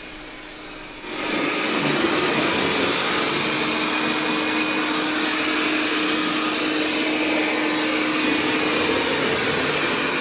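Roborock S6 MaxV robot vacuum running its suction on a hard floor: a steady, even whooshing hum with a faint steady tone in it. It comes in at full level about a second in and then holds.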